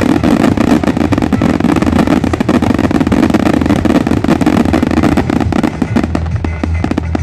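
Aerial fireworks barrage: many shells bursting in rapid succession with dense crackling, the pops and bangs coming a little less thickly near the end.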